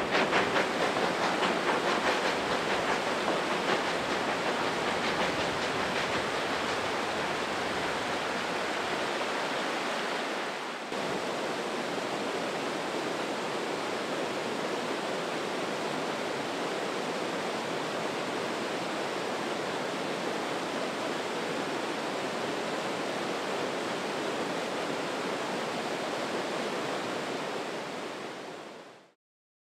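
A rocky river rushing over boulders, a steady roar of water with a brief dip just before the halfway point, fading out near the end.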